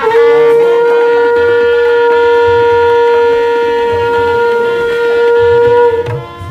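Conch shell (shankha) blown in one long, steady note, held for about six seconds before it stops.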